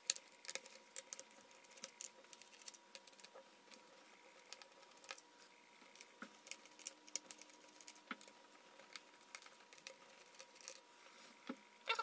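Irregular light clicks and taps of hands and a small screwdriver working on a laptop's plastic bottom cover while its screws are loosened.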